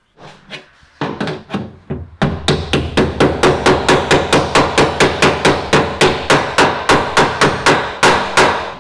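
Body hammer striking the crash-dented sheet-metal quarter panel of a Porsche 911 GT3 RS. A few scattered blows are followed by a fast, even run of about four strikes a second, working the tension out of the deformed metal.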